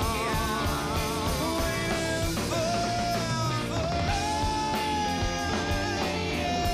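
Rock band playing live: a male singer holding long notes over electric guitar, bass guitar and a drum kit, with steady drum hits.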